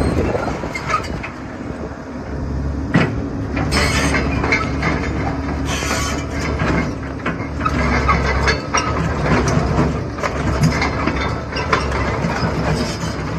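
Komatsu PC130 crawler excavator's diesel engine running steadily under hydraulic load as the boom drives the bucket down and tips the machine up onto one track. Irregular metallic clanks and creaks from the tracks and undercarriage come over the engine, with a few sharper knocks.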